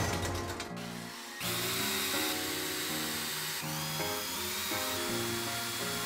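Electric screwdriver running, backing out the screws of a wiper motor's gearbox cover, starting about a second and a half in. Background music plays throughout.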